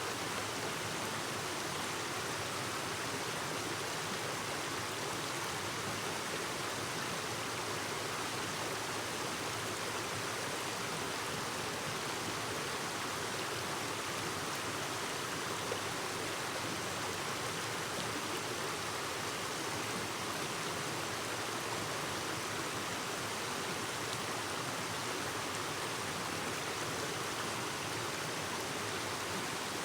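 Clear mountain stream babbling over rocks: a steady, even rush of flowing water.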